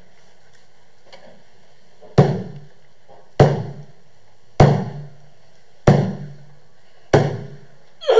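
A large drum struck five times in a slow, even beat, about one stroke every 1.2 seconds, each stroke ringing out briefly.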